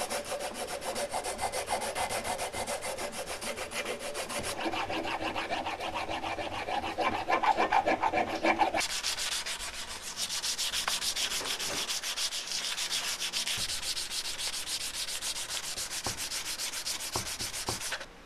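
Hand sanding of a knife's recycled-plastic handle with abrasive paper: rapid back-and-forth rubbing strokes. About nine seconds in, the rubbing changes abruptly to a lighter, higher-pitched hiss.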